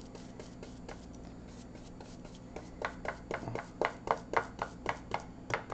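Bristle paintbrush dabbing acrylic paint, heard as a run of short taps about three or four a second that starts around halfway through.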